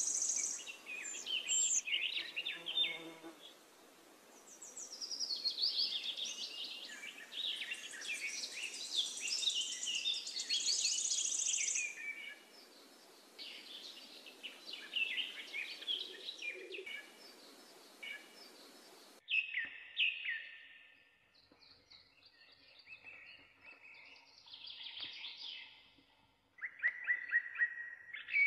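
Birds chirping and singing, many quick overlapping calls and trills.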